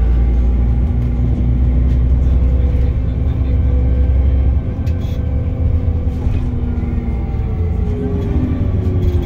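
Interior of a Wright Gemini 2 VDL DB300 double-decker bus under way: the engine and Voith automatic gearbox drone with a steady whine, over a heavy low rumble that eases about halfway through. A few light knocks and rattles come from the bodywork.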